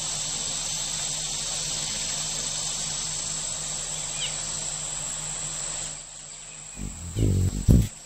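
Steady high-pitched insect chorus, with a couple of faint short chirps about four seconds in. Near the end it drops and gives way to a few loud, low-pitched sounds.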